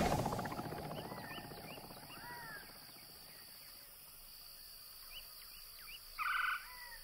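Quiet wildlife ambience with short, thin bird chirps scattered through it, then two short, harsh, buzzy calls near the end. At the start a louder pulsing rumble fades away over the first second or two.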